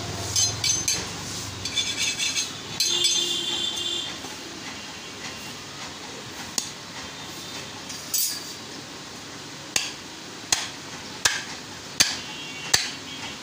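Butcher's steel blades clinking and scraping together in quick ringing strokes, then a heavy cleaver chopping into beef on a wooden log block: single sharp hits, the last five coming about once every three-quarters of a second.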